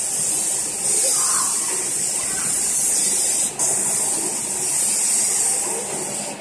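Automatic car wash machine spraying, a loud steady hiss of its jets with a brief break about three and a half seconds in.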